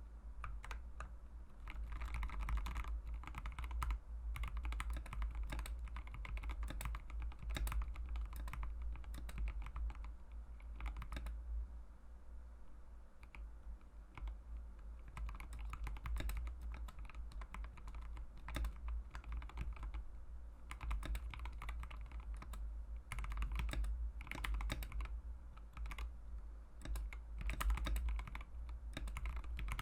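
Continuous fast typing on a mechanical keyboard with Mauve linear switches, in stock form before retuning: a dense run of keystroke clacks that thins to lighter, sparser typing for a few seconds around the middle, over a steady low hum.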